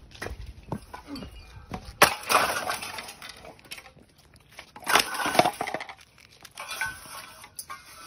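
An object being smashed: two loud crashes about 2 and 5 seconds in, each trailing off with rattle, a smaller crash near the end, and lighter knocks in between.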